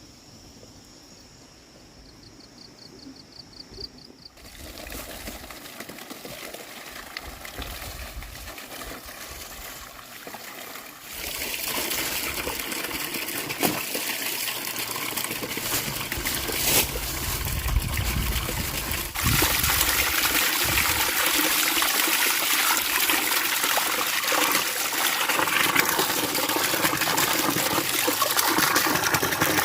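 Water running and splashing: faint at first, it comes in about four seconds in and gets louder in steps around eleven and nineteen seconds.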